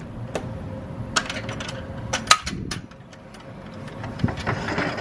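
Clicks and knocks of a door being unlocked and opened, the loudest sharp click about two seconds in, followed by a rougher scraping rush near the end.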